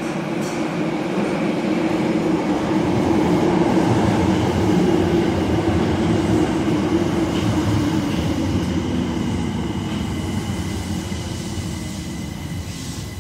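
Marunouchi Line 02-series subway train pulling into the station and slowing to a stop: a rolling rumble that swells as the cars pass, then eases away as it brakes, with a thin high whine held through it.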